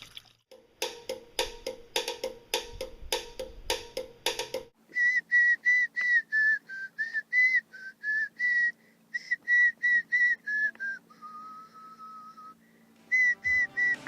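A whistled tune of short high notes, with one longer, lower held note past the middle, after a few seconds of a steady beat of about three strokes a second.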